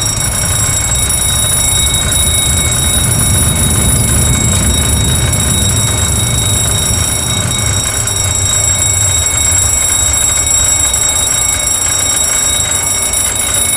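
Boeing 737 engine fire warning bell ringing without pause, signalling an engine fire, over the low rumble of the aircraft decelerating on the runway under braking in a rejected takeoff; the rumble eases off in the later seconds as the aircraft slows.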